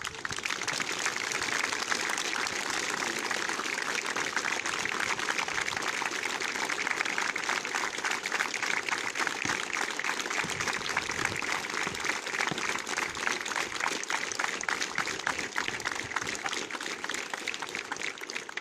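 Crowd applauding: many hands clapping in a dense, steady patter that eases off slightly near the end.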